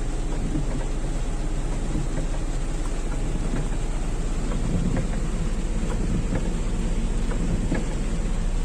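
Rain pattering on a car's roof and windows, heard from inside the cabin, over a steady low rumble from the moving car.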